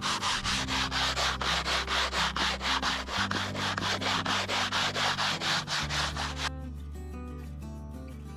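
Hand sanding float scraped back and forth over the top of an aerated concrete block, fast rasping strokes about four a second, planing the course flat where a corner block was set crooked. The rubbing stops suddenly about six and a half seconds in, leaving background music.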